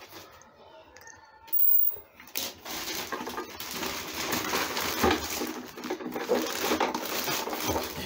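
Green plastic housing of a Fantom vacuum cleaner being handled and turned over, plastic rubbing and clattering with many small knocks, starting about two seconds in.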